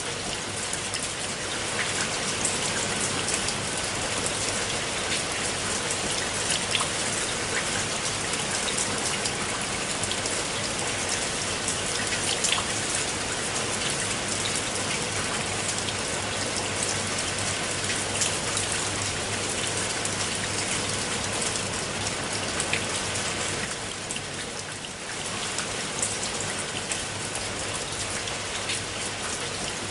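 Steady rain falling onto a pool of water, a dense patter of individual drops. It eases briefly about three-quarters of the way through.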